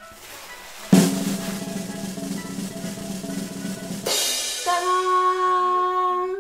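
Drum roll sound effect for about three seconds, ending in a cymbal-like crash, followed by a held "ta-da!" reveal.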